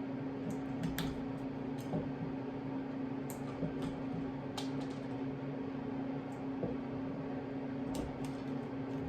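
Steady low hum with scattered small clicks and ticks as electrical wire and a switch are handled.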